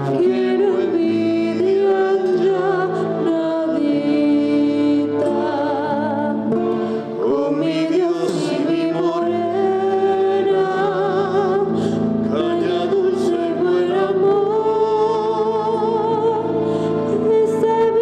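A woman and a man singing together with vibrato to an acoustic guitar.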